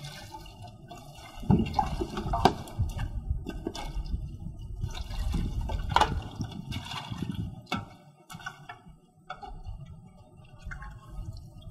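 Water poured from a large plastic jug into a metal basin of green onions, and hands swishing and rubbing the onions in the water, with splashing and a few sharp knocks.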